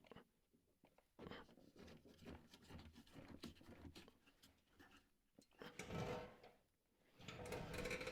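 Faint workshop handling noises: soft rubbing and small knocks as a wooden piece is shifted and set in place on clamped blocks, with a louder stretch of rubbing about six seconds in and again near the end.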